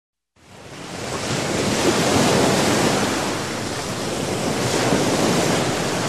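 Steady rushing noise that fades in over the first second or so, with mild swells in level.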